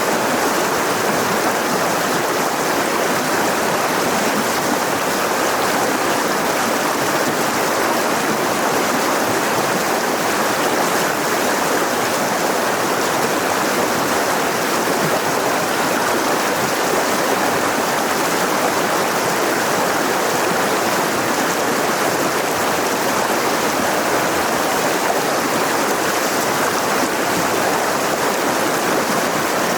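Mountain river rushing over rocks in a steady, even wash of water noise.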